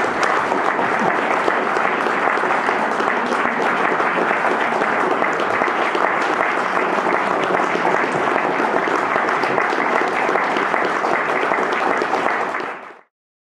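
Audience applauding steadily, with the sound fading out quickly near the end.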